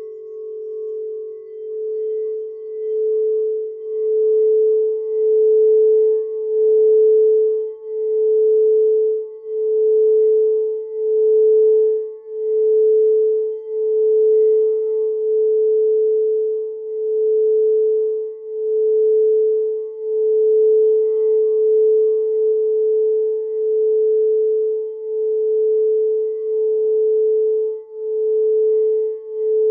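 Frosted quartz crystal singing bowl being rimmed with a mallet: one steady sustained tone that swells over the first few seconds, then pulses in a slow, regular wobble roughly every second and a half. A slightly lower tone from a second bowl dies away in the first second.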